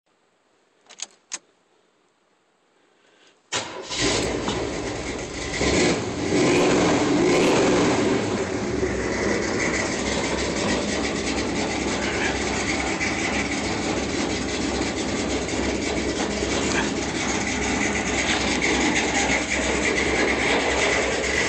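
Car engine started with the ignition key: two light clicks about a second in, then it catches about three and a half seconds in, swells louder over the next few seconds and settles into a steady, loud idle.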